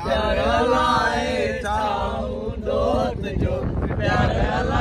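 Male voice singing or chanting in long drawn-out notes, over the low rumble of wind and a moving vehicle.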